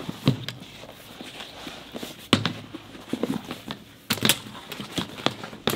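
A vinyl seat cover being flipped over and handled on a workbench: rustling and crinkling of the material, with several sharp knocks, the loudest about two and four seconds in.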